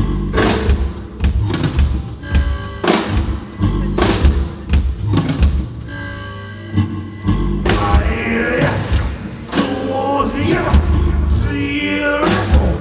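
Live band music: a drum kit struck in loose, irregular hits and cymbal crashes over sustained keyboard tones. From about eight seconds in, a man's voice sings sliding notes over the playing.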